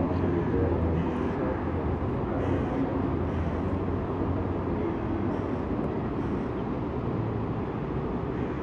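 Steady low rumble of distant city traffic, an even background hum with no distinct events.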